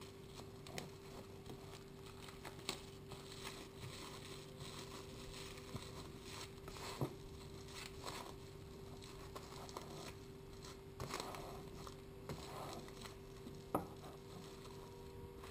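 Faint crinkling and rustling of cling film as a leek roll wrapped in it is rolled and tightened by hand on a plastic cutting board, with scattered light clicks. A steady faint hum runs underneath.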